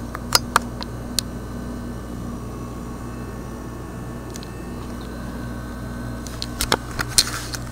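A 1986 GE refrigerator's compressor running with a steady low hum, purring like a kitten. A few sharp clicks come near the start and again toward the end.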